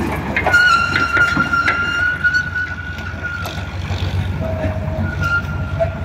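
Eicher tractor's diesel engine running with a steady low rumble as it pulls its trailer away over dirt. A steady high-pitched tone sounds over it for about three seconds, and a shorter, lower tone comes near the end.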